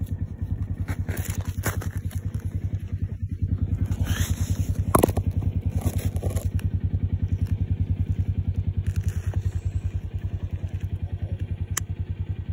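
A small engine running steadily, a low even pulse about ten times a second, with a sharp click about five seconds in and another near the end.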